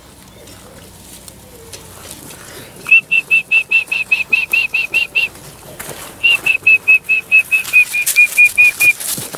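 A bird calling close by: two quick runs of short, high whistled notes, about six a second, the second run dropping slightly in pitch near its end.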